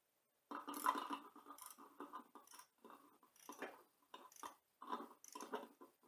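Socket ratchet wrench clicking faintly in short irregular runs as it is swung back and forth.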